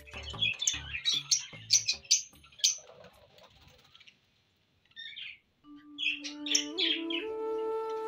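Small cage parrots chirping rapidly over background music with a beat. The sound drops out briefly about halfway, then more chirps come over long held music notes.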